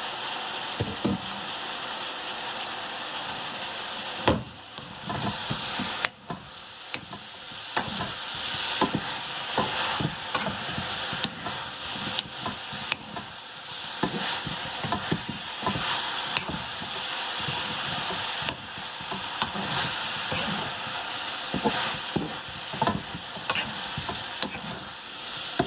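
Vegetables and pork sizzling in a stainless-steel wok, with a spatula stirring and scraping against the pan in irregular clicks and knocks from about four seconds in.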